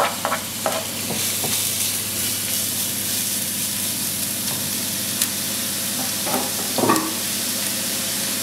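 Chopped onion frying in vegetable oil in a non-stick pan: a steady sizzle, with a wooden spoon scraping and knocking as it stirs. A few clicks near the start as the onion goes into the pan, and a couple of knocks near the end.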